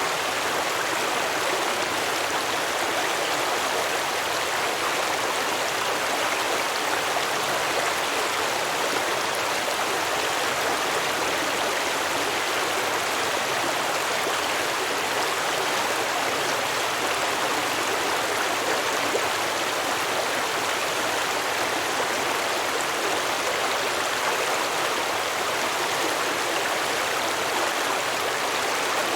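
A stream running over rocks: steady babbling and rushing water.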